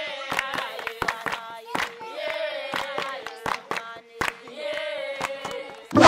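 A group singing a song together with hands clapping along; the clapping comes in regular sharp strokes over the voices.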